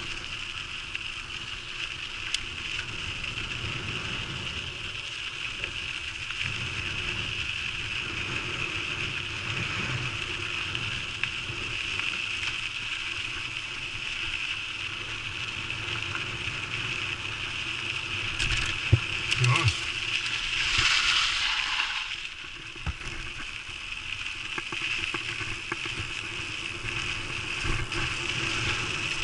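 Riding noise of a mountain bike rolling along a dirt trail: a steady high buzzing hiss with low rumble, broken about two-thirds of the way through by a few sharp rattling clicks and a short louder rush.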